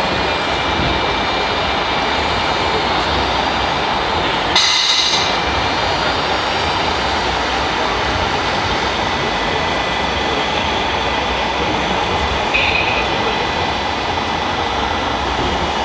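Steady mechanical running noise, with a brief high-pitched squeal about four and a half seconds in and a shorter, fainter one near the end.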